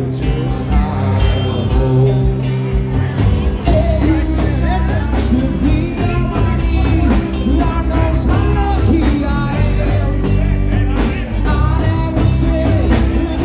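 Live rock band playing loudly through a PA: a male singer singing into a microphone over electric guitars and a drum kit.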